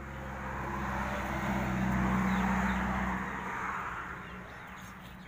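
A motor vehicle passing by: its engine hum and road noise swell to a peak about two seconds in, then fade away.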